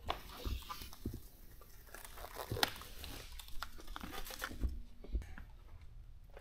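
Quiet handling noises of gloved hands at a workbench: crinkling with scattered light clicks and knocks, and a sharper click about two and a half seconds in.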